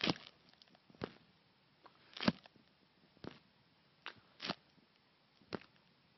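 Faint clicks and taps, about seven of them, at irregular intervals with near silence between.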